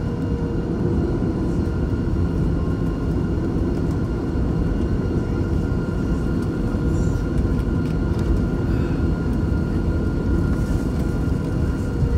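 Cabin noise of a Boeing 737 taxiing, heard at a window seat over the wing: the engines run steadily at low power, a dense even rumble with a few faint steady whines above it.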